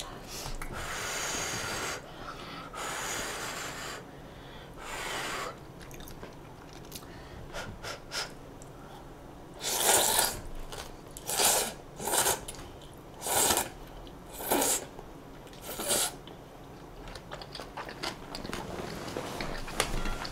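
Close-miked mouth sounds of someone eating udon noodles. Soft hissy stretches come first, then about six short, sharp noisy bursts between about ten and sixteen seconds in.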